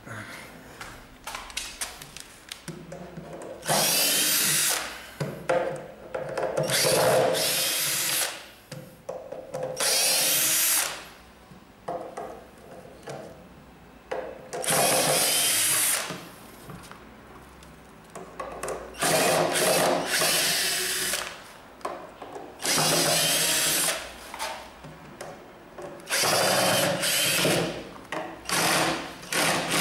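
Cordless drill-driver backing screws out of a plywood shipping crate, in about seven short runs of a second or two each. The motor whine rises and falls within each run, with quieter handling and clatter between runs.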